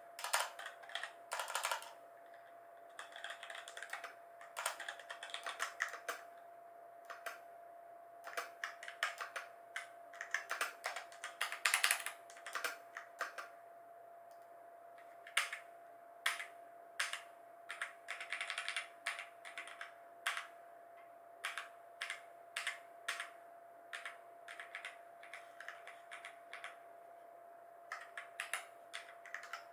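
Typing on a Razer BlackWidow Lite mechanical keyboard with Razer Orange switches: runs of rapid key clicks broken by short pauses. A faint steady tone hums underneath.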